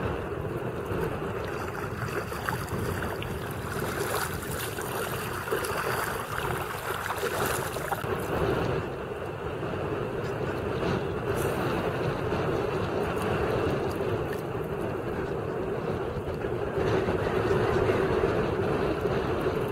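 Steady wind noise on the microphone with small waves lapping against a kayak's hull as it drifts, a little louder near the end.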